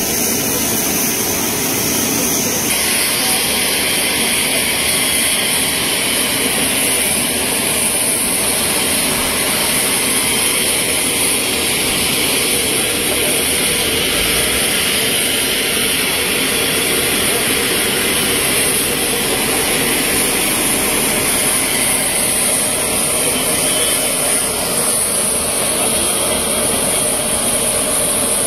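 Jet aircraft turbine running steadily: a constant high-pitched whine over a rushing noise.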